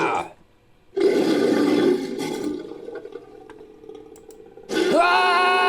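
Edited creature sound effect for an invented frog-like monster. About a second in, a loud noisy rush starts and fades away over a few seconds. Near the end, a long pitched call with many harmonics begins.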